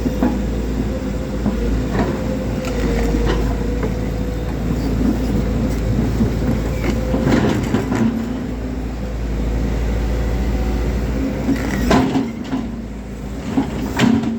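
Volvo crawler excavator at work: its diesel engine runs steadily with a faint whine, while metal clanks and knocks come now and then, the loudest near the end.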